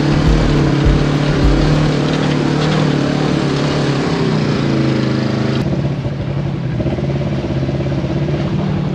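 Polaris RZR 1000 side-by-side's parallel-twin engine running at steady, moderate revs as it drives through mud and slush, with a rushing noise over it. About five and a half seconds in, the rushing drops away abruptly and the engine hum carries on.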